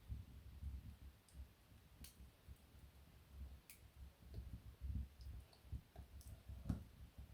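Wood fire in a fireplace crackling softly: a few scattered sharp pops and clicks over a faint, fluttering low rumble.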